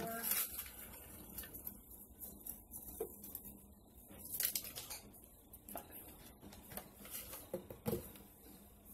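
Folded paper slips rustling and clicking inside a clear plastic jar as a hand rummages and pulls one out, with a few sharper taps of the jar being handled.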